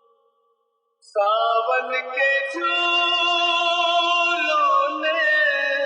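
Music: after a fading note and about a second of silence, a sustained melody with sliding, singing-like notes starts suddenly and holds on, with no drum beat.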